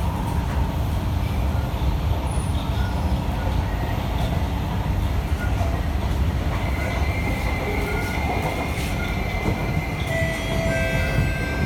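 Cabin of an SMRT C151B metro train in motion: a steady low rumble of wheels on rail. A thin high whine joins about halfway through, and more thin tones come in near the end.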